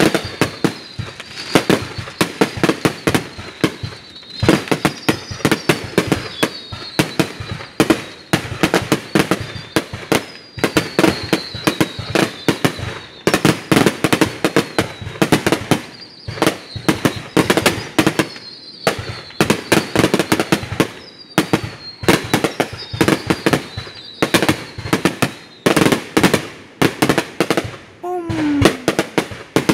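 Fireworks display: a continuous rapid barrage of bangs and crackling bursts, many a second, with short falling whistles recurring over it.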